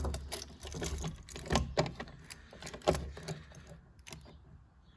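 Footsteps, dull thuds about once a second, mixed with light clicks and knocks from handling, fading quieter near the end.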